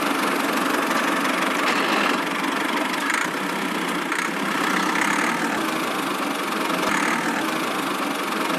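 Small motor of a miniature DIY construction machine running steadily.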